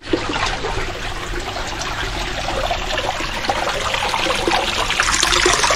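Water from the pump-fed garden water feature running and trickling into the pond, a steady splashing that grows a little louder toward the end.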